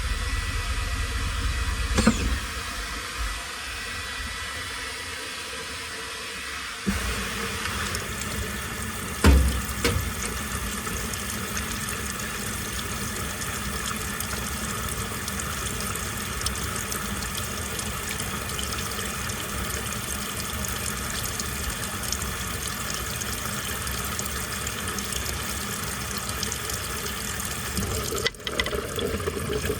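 Washing machine filling with water: a low hum for the first several seconds, then water starts rushing into the drum about seven seconds in and pours steadily. There are short knocks about two seconds in and again about nine seconds in.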